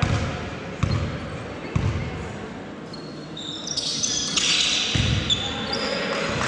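Basketball bounced on the court floor, slow dribbles about a second apart that echo in the large hall. From about halfway in, high short squeaks of sneakers on the court join in as players run.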